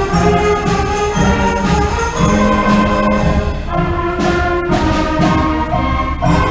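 Middle school band playing live: woodwinds and brass sustaining pitched notes over a steady low pulse.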